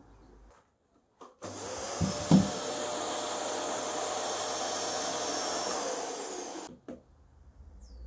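Canister vacuum cleaner, hosed through a homemade paint-bucket cyclone dust separator, switched on about a second and a half in and running steadily for about five seconds, then cutting off as its motor winds down. There are a couple of low thumps just after it starts.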